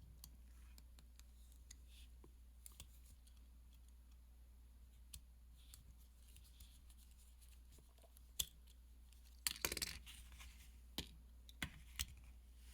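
Faint, sparse clicks and taps of small hand tools on tiny metal watch parts during disassembly of a mechanical watch, with a quick cluster of clicks about two-thirds of the way through, over a low steady hum.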